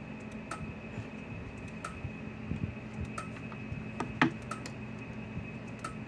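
A Gallagher S200 solar electric fence charger pulsing, a sharp tick about every 1.3 seconds as it fires. Its rebuilt board is working and putting out almost 8,000 volts. A single louder click comes about four seconds in.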